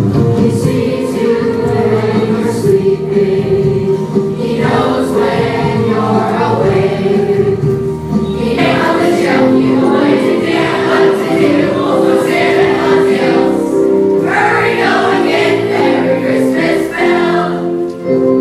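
A choir singing a song over sustained instrumental accompaniment, in sung phrases of a few seconds each with short gaps between them.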